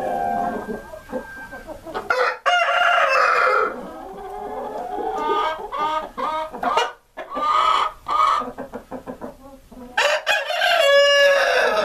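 A flock of Columbian Rock chickens clucking and calling. Loud drawn-out calls come about two seconds in and again near the end, the last one falling in pitch.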